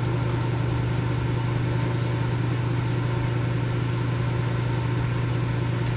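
Steady, unchanging low mechanical hum from a running machine, with no distinct events in it.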